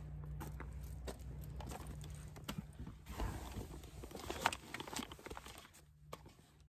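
Footsteps and a run of scattered knocks, rustles and taps as a person climbs into a car, with handheld-camera handling noise. The knocks are densest about halfway through.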